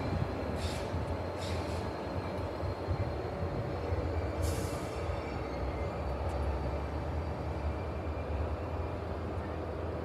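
Amtrak passenger train's diesel locomotive and cars running with a steady low rumble as the train moves away along the track. A short hiss comes about four and a half seconds in.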